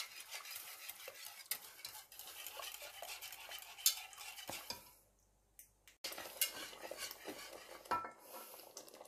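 Wire whisk stirring a thickening flour-and-broth sauce in a non-stick pot, its wires scraping through the sauce and ticking against the pan. The stirring breaks off for about a second near the middle.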